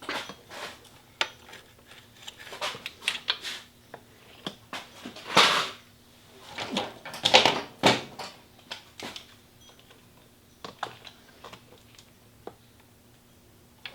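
Irregular clicks, taps and scraping of a screwdriver working at a motorcycle's throttle-cable distribution box, pushing it free of a bracket. Two longer, louder scrapes come about five and a half seconds in and from about six and a half to eight seconds in.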